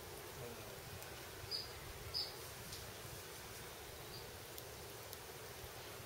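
Lesser goldfinches giving short, high chirps: two clear ones about two-thirds of a second apart, a little over a second in, and a fainter one around four seconds, over a steady outdoor hiss.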